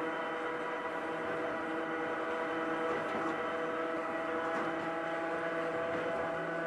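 Hakone Tozan Railway Mo1-type electric train with nose-suspended traction motors running, heard from aboard: a steady motor and gear whine at a constant pitch over the running noise of the wheels, with a few faint ticks.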